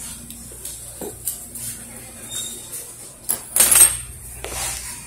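Light clatter and clicks of dishes and cutlery handled at a table, with a louder rattle about three and a half seconds in, over a faint steady hum.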